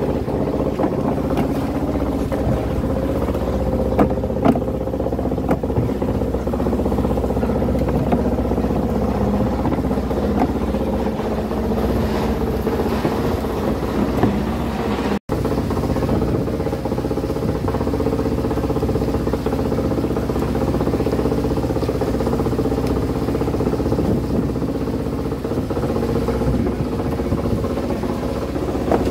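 Moored fishing boat's engine idling with a steady drone, with a few sharp knocks of plastic fish crates being handled.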